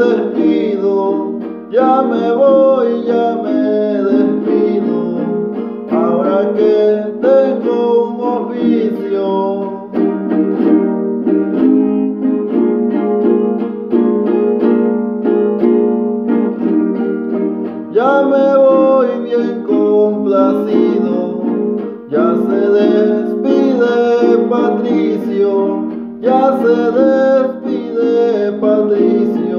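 A man sings son jarocho verses over a small jarana strummed in a steady, rhythmic pattern. The singing comes and goes in phrases, with a stretch of strumming alone in the middle.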